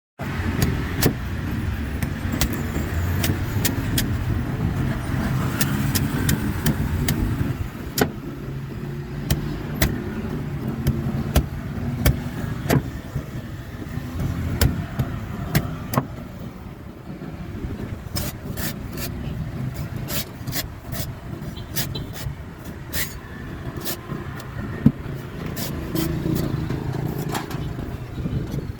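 Steady low engine rumble of a motor vehicle running, with many sharp, irregular cuts and knocks of a blade on a coconut husk.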